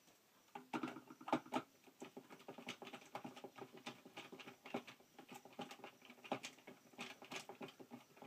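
Rapid, irregular small clicks and scratching of hands and a small screwdriver working solar cable into a charge controller's screw terminals, starting about half a second in.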